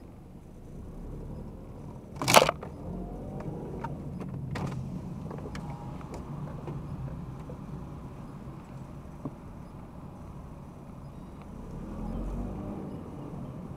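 Steady low engine and road rumble heard inside a moving car, which swells somewhat near the end. A single short, sharp, loud knock comes about two seconds in, and a smaller one a couple of seconds later.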